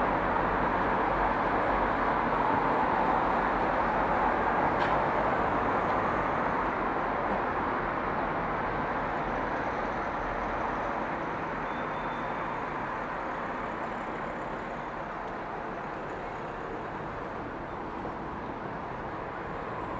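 Steady hum of distant road traffic, slowly growing quieter, with one faint click about five seconds in.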